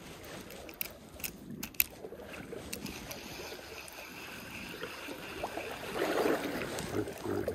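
Spinning reel being worked after a cast: a few sharp clicks about a second in, then the reel cranked, over the steady trickle of a creek. A louder rustle comes near the end.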